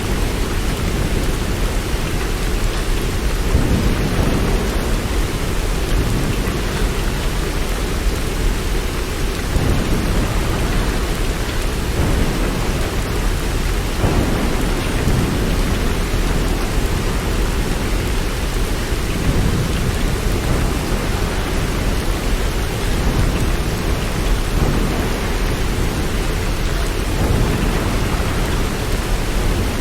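Steady, heavy rain with a continuous low rumble underneath, like distant thunder.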